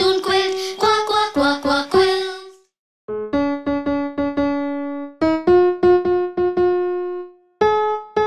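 Children's song music: a sung line over keyboard ends about two and a half seconds in. After a short silence, a keyboard or electric piano plays a simple melody alone, one note at a time, each note dying away.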